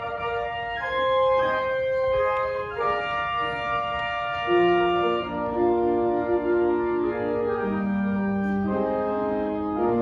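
Organ playing slow, sustained chords, several notes held together and changing every second or two, like a hymn played in a church service.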